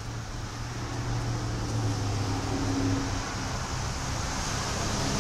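Low engine hum of a passing motor vehicle over steady outdoor background noise, growing louder about two seconds in and again near the end.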